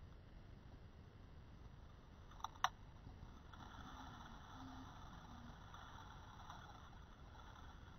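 Faint underwater hiss picked up through a camera's waterproof housing, broken by two sharp clicks about two and a half seconds in. A faint whir follows for a few seconds after the clicks.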